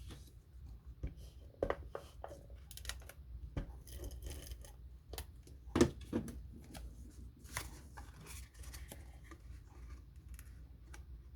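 Paper and cardstock being handled and pressed together: irregular rustling and small clicks, with one sharper tap about six seconds in.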